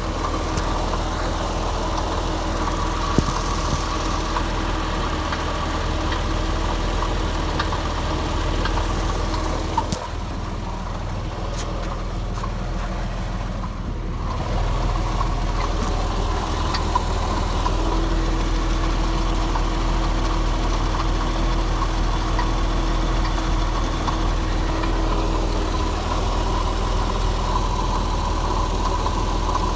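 Porsche Boxster S (986) 3.2-litre flat-six engine idling with a rattle, which the owner puts down to a failing water pump. It dips a little in level for a few seconds midway.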